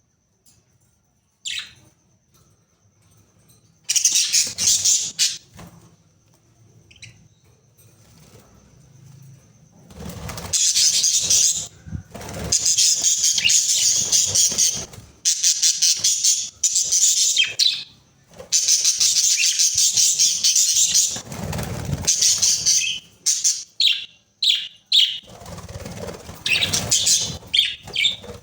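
Budgerigars warbling and chattering in long, dense scratchy runs, breaking into a string of short sharp chirps near the end.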